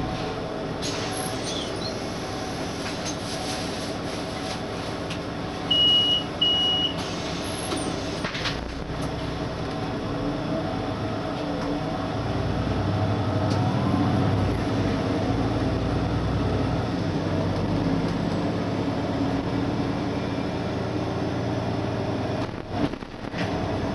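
Solaris Urbino 8.9 LE city bus heard from inside while driving: a steady engine and drivetrain drone with road noise, growing louder about halfway through as the bus pulls along. Two short high beeps sound about six seconds in.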